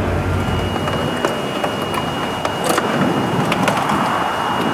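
Rustling and light clicks of thin electrical wires being pulled and handled against a scooter's plastic front panels, over a steady hiss and a thin, steady high tone.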